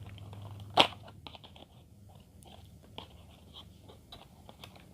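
A parcel being opened by hand: a sharp rip about a second in, then scattered crackling and rustling of the packaging.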